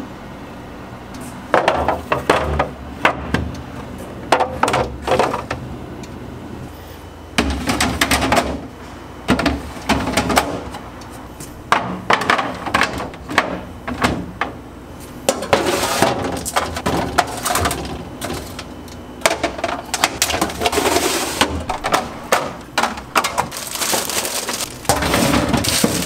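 Clear plastic storage bins and food containers being set onto and slid along glass fridge shelves: clusters of clattering knocks and clinks of plastic and glass, coming in bursts with short pauses between.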